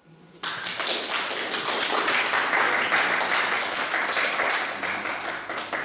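Small audience applauding: clapping starts suddenly about half a second in and dies away near the end.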